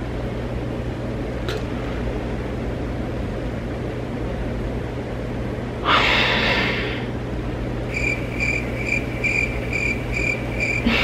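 A steady low hum, with a loud breathy sigh about six seconds in. Over the last three seconds a high electronic beeping, about three beeps a second.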